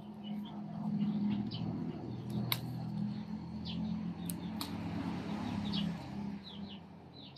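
Small birds chirping in short high calls, over a low steady drone and a few sharp clicks.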